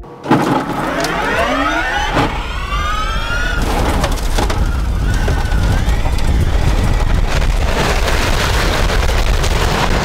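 Electric rallycross race cars accelerating hard, several motor whines rising in pitch together over the first few seconds. A loud, steady rush of noise follows as the cars run at speed.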